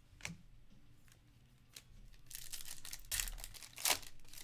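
A trading card pack wrapper being torn open and crinkling, with a short click about a quarter second in and two sharp rips near the end.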